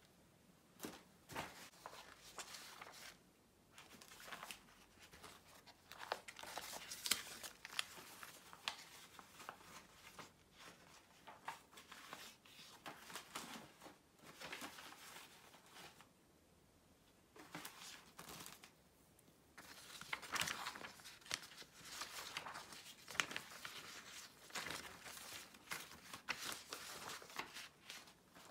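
Close paper sounds: rustling, crinkling and crisp crackles as old book pages and loose printed pages are handled and laid down. A couple of seconds of near quiet come a little past halfway, then the rustling picks up again more densely.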